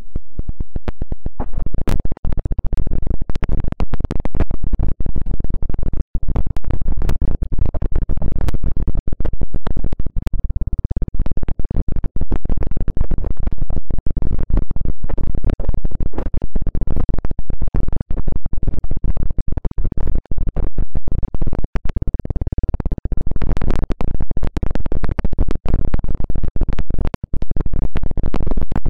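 ASMR ear massage: hands rubbing and scratching over a binaural microphone's ears close up, giving a loud, dense, continuous crackle with heavy low rumble.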